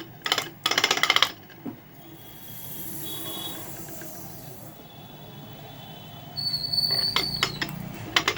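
Ceiling fan running with a high thin squeal and sharp clicks from inside its motor, near the end. The repairer puts the noise down to a worn bearing or a scored shaft, and has yet to find which.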